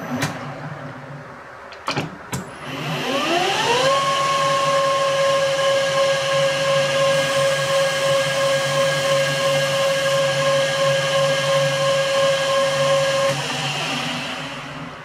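Metal lathe spindle motor starting up after a couple of clicks. Its whine rises in pitch about three seconds in, then runs steadily at one pitch, and the tone drops away near the end.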